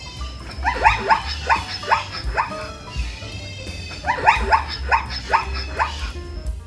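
A dog yapping in two quick bouts of short high barks, each bark sliding down in pitch.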